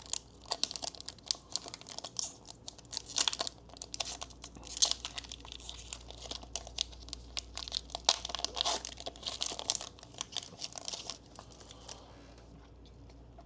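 Foil wrapper of a Pokémon trading card booster pack crinkling and tearing as it is ripped open and handled, in quick irregular rustles that stop about two seconds before the end.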